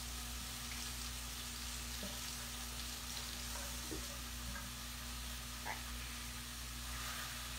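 Ground beef sizzling in a frying pan as it starts to brown, a steady hiss with a few light knocks of a utensil against the pan.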